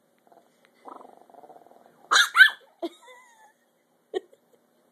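Puppy growling low, then giving two sharp barks in quick succession: resource-guarding her treat.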